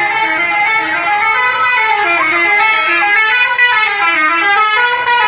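Bus 'telolet' horn, a multi-tone musical air horn, playing a loud melody of stepping notes with several tones sounding together.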